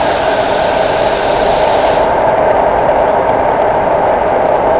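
Santiago Metro Line 6 train (Alstom AS-2014) running through a tunnel, heard from inside the car: a loud, steady running noise. A high hiss lies over it and stops about two seconds in.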